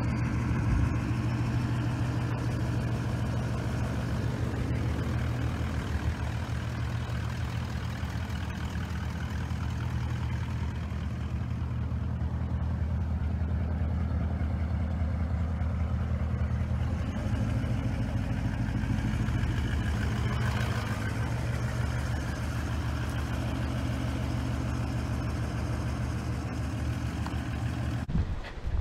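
Toyota LandCruiser 200 series V8 engine idling steadily.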